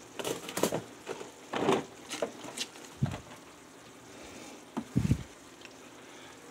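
Plastic spice jars being handled and taken from a kitchen cupboard: irregular short knocks, clicks and rattles.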